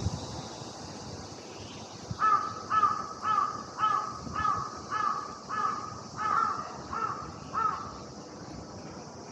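A bird calling in a steady run of about a dozen short calls, about two a second. The calls start about two seconds in and stop a second or so before the end.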